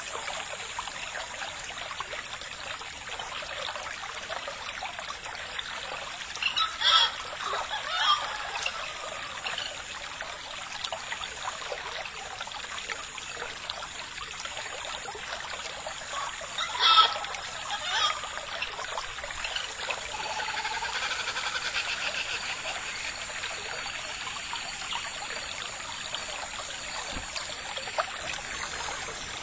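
Steady trickle of running water. Two brief, sharp pitched calls stand out over it, about seven and seventeen seconds in.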